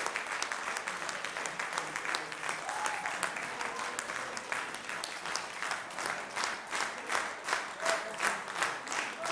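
Audience applauding. About halfway through, the scattered clapping settles into rhythmic clapping in unison, roughly two to three claps a second.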